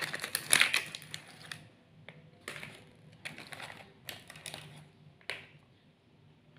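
Shiny plastic snack wrapper crinkling as it is torn open and peeled off a chocolate crepe roll: dense crackling for the first second and a half, then a few separate rustles.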